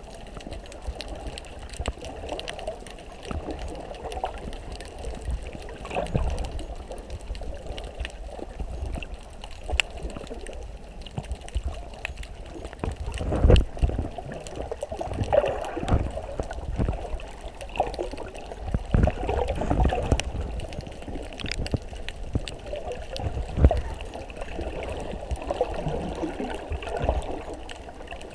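Underwater ambience heard through a GoPro's waterproof housing: muffled, irregular water swirling and gurgling, with a few louder low surges, the strongest about halfway through.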